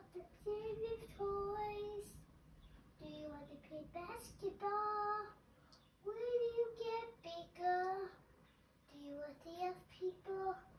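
A young child's voice singing in about four short phrases that rise and fall in pitch, with brief pauses between them.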